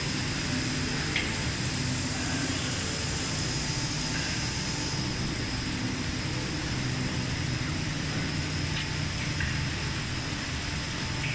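Fried instant noodle production line running: a steady low hum of drive motors and conveyors under an even hiss, with a thin high whine and a few faint ticks.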